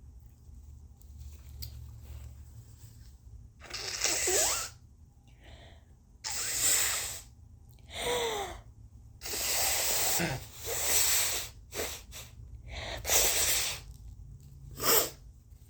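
A woman's forced sneezes from an irritated, allergic nose: after a quiet start, a run of about seven loud, breathy gasps and sneezes one to two seconds apart, some with a high-pitched voice gliding down, ending in a short, sharp sneeze near the end.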